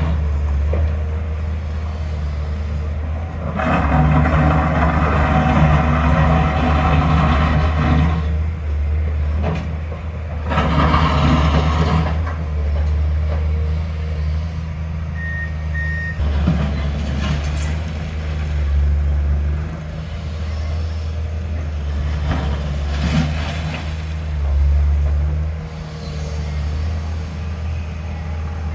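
Heavy diesel construction machinery running steadily, with two louder stretches of working noise as it takes load. Two short high beeps sound about halfway through.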